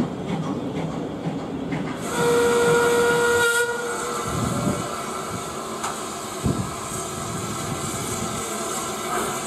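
Steam locomotive whistle giving one steady blast of about a second and a half, a couple of seconds in, followed by continuous steam hissing. Before the whistle there is light clanking from the train.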